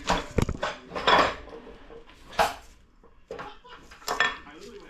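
Metal parts of a 4L60 automatic transmission clinking and clanking as they are handled during teardown: a string of separate sharp metallic knocks, the loudest about a second in.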